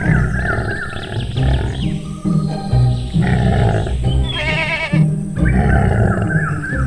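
Background music with a regular bass pattern and a wavering melody, with a short trilling, wavering sound mixed in about four and a half seconds in.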